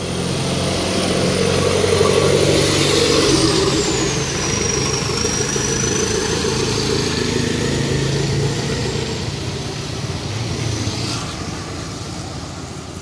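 Motor vehicle engine running steadily amid street traffic noise, with a thin high whine that drops in pitch a few seconds in and then slowly creeps back up.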